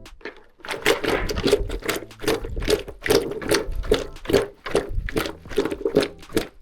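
Fast, uneven rattling strokes, several a second, from dried celery leaves being shaken out of their container over the marinating chicken. They start a little under a second in and stop near the end.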